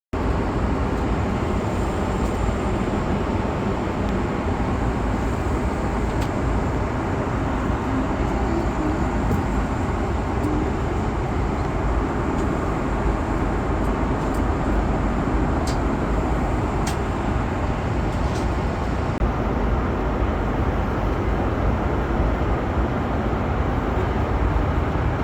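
Steady rumbling noise inside a moving vehicle's cabin, holding at an even level throughout.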